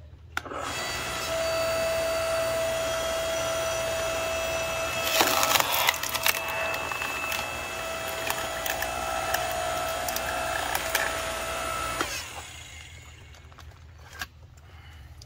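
Ryobi 15-amp electric log splitter running, its motor and hydraulic pump giving a steady whine as the ram drives a notched log into the wedge. Loud cracking and splintering about five seconds in as the wood splits, with further cracks after. The whine drops away about twelve seconds in.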